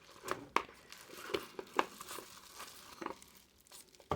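Packaging being handled and unwrapped by hand, crinkling and rustling in a run of irregular crackles and light clicks.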